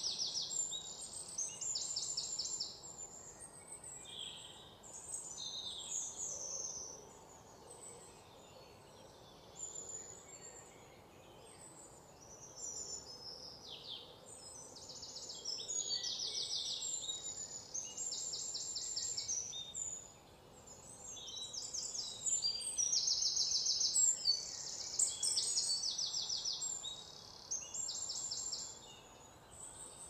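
Outdoor ambience of small birds calling: high-pitched chirps and short trilled phrases, repeated throughout, over a faint steady background hiss.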